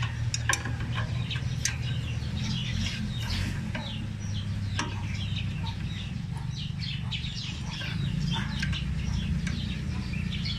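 Chickens clucking and small birds chirping over a steady low hum, with a few sharp metallic clicks of a wrench on a bolt.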